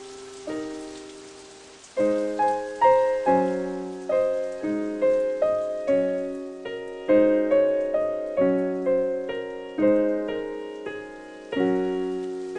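Solo piano music playing slow, gentle notes and chords, each struck and left to fade; after a sparse opening, about two seconds in it settles into a steady flow of roughly two notes a second.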